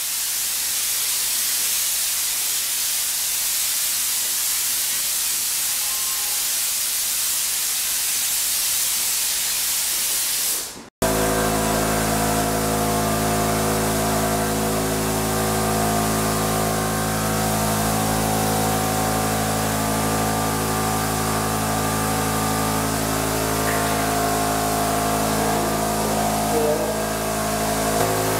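Spray gun misting disinfectant with a steady high hiss. About eleven seconds in the sound cuts off abruptly and gives way to the steady hum of the sprayer's motor unit under the spray hiss.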